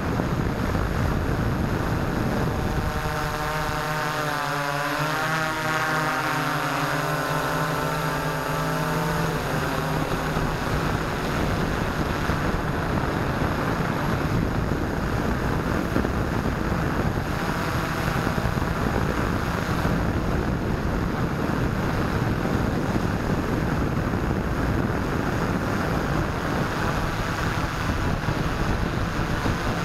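Multicopter's electric motors and propellers running in flight, heard through the onboard keychain camera's microphone with steady wind rush over it. From about three seconds in to about nine seconds, a set of whining tones wavers up and down as the motors change speed.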